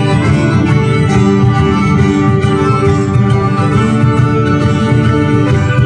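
Folk band playing a morris dance tune, with held chords and notes layered over a steady beat.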